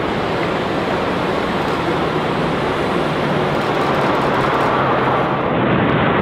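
Boeing 787-9 airliner's General Electric GEnx-1B turbofan engines running as it lands and rolls out on the runway: a loud, steady rushing noise with a low hum that slowly falls in pitch, growing a little louder near the end.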